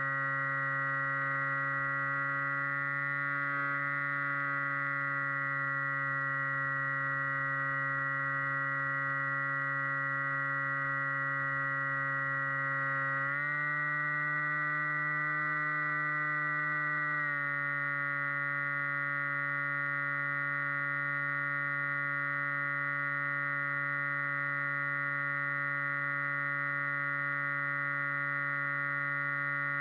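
Electric motor and propeller of an FPV flying wing running in flight, a steady whining hum. The pitch steps up about halfway through and drops back about four seconds later as the throttle is raised and eased off.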